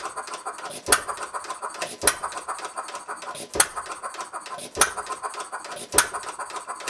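Galloway 1/3-scale model of a 5 hp water-cooled hit-and-miss engine running. It fires with a sharp bang about every 1.2 seconds, five times, and its moving parts click rapidly and lightly between firings. The bangs are the engine taking power strokes only when the governor calls for one, and the clicking comes as it coasts on its flywheels in between.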